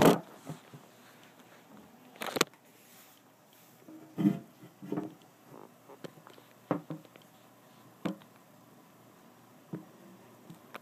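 Handling noise from a phone camera being moved about: a loud knock at the start, then scattered short knocks and rubs every second or two.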